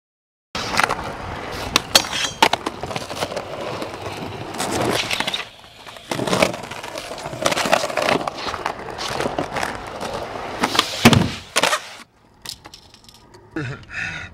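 Skateboard wheels rolling over rough concrete, broken by several sharp clacks of the board popping and landing. The rolling stops about twelve seconds in.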